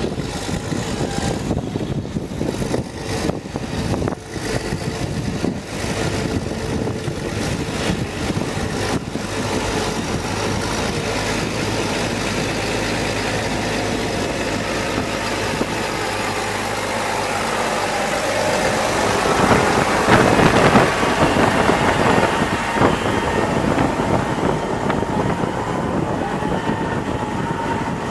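New Holland T7060 tractor's six-cylinder diesel engine running as the tractor drives up to and over the ground-level microphone. It is loudest about two-thirds of the way through, then eases off as the tractor moves away.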